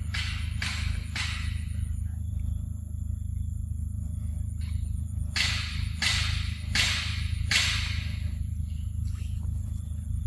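Young macaque eating a ripe mango close to the microphone: wet smacking and slurping noises, three at the start and four more from about five seconds in, each trailing off, over a steady low rumble.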